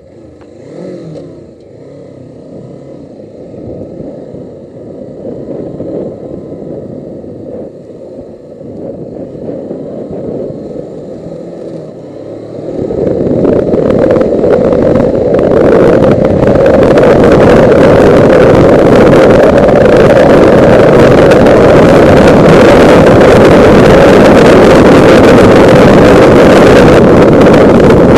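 Suzuki GS500E's air-cooled parallel-twin engine running as the motorcycle pulls away, its pitch rising with the revs. About twelve seconds in, a loud, steady wind rush on the camera's microphone at road speed takes over and covers the engine.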